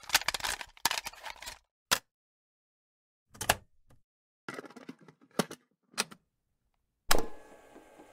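A cassette tape and a cassette player being handled, clicking and rattling as the tape is loaded. About seven seconds in, a louder clunk of the play key starts the tape, and steady tape hiss with a faint hum follows.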